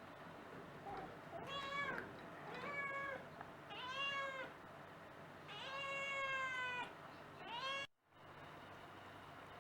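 American Curl cat meowing five times, the fourth call the longest, with the sound cutting out abruptly just after the last one.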